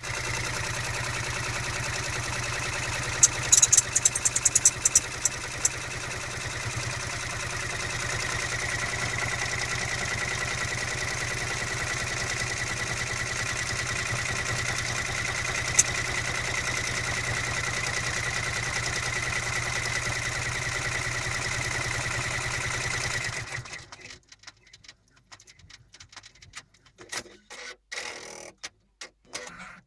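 Brother PR600 multi-needle embroidery machine stitching at a steady speed, with a steady high-pitched squeak riding over the stitching for much of the run; the cause of the squeak is unknown to the owner. A quick run of sharp clicks comes a few seconds in. The machine stops about three-quarters of the way through, leaving scattered light clicks.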